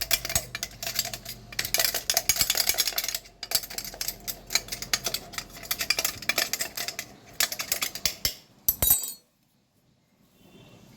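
Metal spoon scraping and clinking rapidly against steel kitchenware as freshly ground masala powder is emptied out of the mixer-grinder jar. The clatter stops abruptly about nine seconds in.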